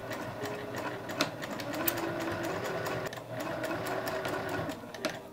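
Juki TL-2010Q straight-stitch sewing machine running steadily, needle ticking rapidly as it stitches along a folded fabric strap, easing off briefly about three seconds in before picking up again.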